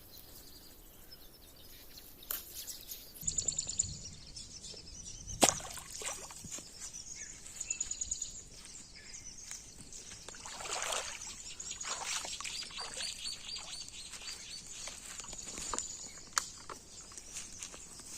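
Outdoor ambience with high, thin bird chirps and trills throughout, a sharp knock about five seconds in, and a few short noisy bursts of rustling or splashing after about ten seconds.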